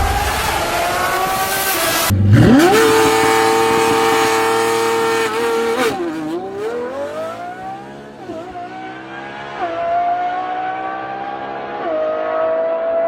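Lamborghini Revuelto's naturally aspirated V12, fitted with an aftermarket exhaust, pulling hard at high revs. The note climbs fast after a brief break, holds high, dips and recovers about halfway, then drops sharply twice at upshifts and climbs again each time.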